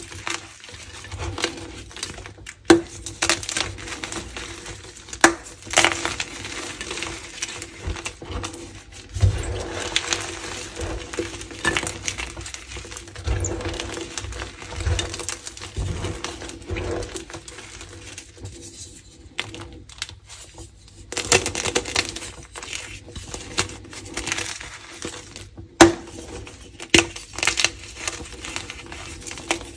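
Blocks of gym chalk crushed and crumbled by hand: irregular crunching and crackling as the soft chalk breaks and fragments fall onto the heap, with a brief lull about two-thirds of the way through.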